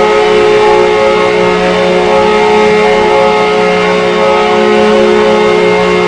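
The Minnesota Wild's arena goal horn sounding one long, loud, unbroken blast, several pitches held together like a chord.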